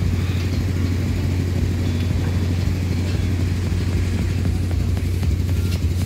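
An engine running steadily at constant speed, a low even drone with no change in pitch.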